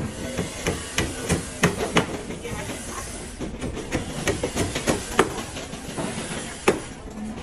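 Irregular knocks and clatter of wooden formwork boards being handled and set on a rebar-laid stair form, over a steady hiss. The sharpest knocks come about five seconds in and again near the end.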